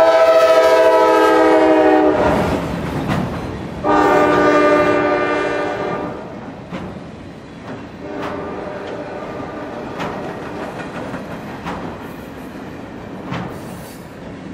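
CSX GE diesel locomotive's multi-chime air horn sounding two long blasts as it passes close by, then continuing more faintly as it moves away. Freight cars roll past with wheels clicking over the rail joints.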